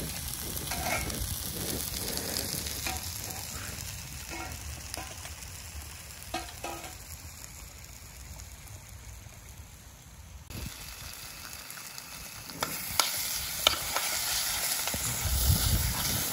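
Chopped vegetables frying and sizzling in ghee in a pan, with a spoon clicking and scraping against the pan as they are stirred. The sizzling grows louder about twelve seconds in.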